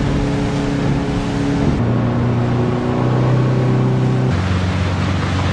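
Small motorboat's engine running under way, with a steady rushing noise over it. The engine's pitch steps up or down a couple of times.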